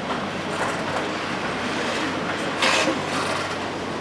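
Tram wheels rolling slowly over a temporary overlay switch (flying points) laid on the street, a steady rolling noise. A short, louder burst comes about two and a half seconds in as the wheels cross the switch rails.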